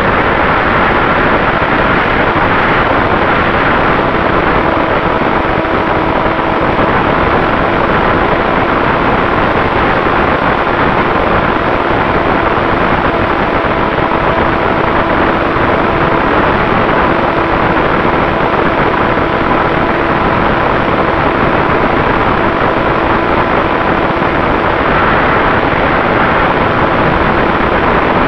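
Steady rush of wind over the onboard camera microphone of a flying HobbyZone Super Cub RC plane, with the steady hum of its Turnigy 3536 brushless electric motor and propeller under the wind.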